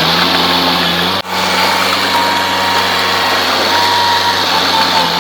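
Heavy earthmoving machinery engine running steadily, with a brief break about a second in.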